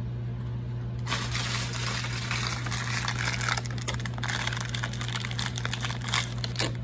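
Packaging crinkling and crackling as it is handled, a dense run of small clicks starting about a second in, over a steady low hum.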